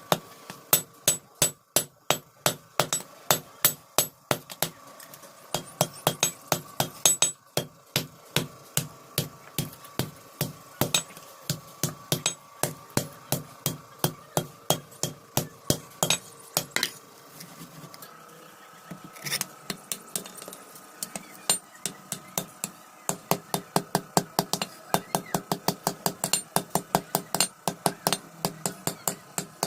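Hand hammer striking iron on an anvil in fast, steady blows, about three to four a second, with a short let-up about two-thirds of the way through before the hammering picks up again.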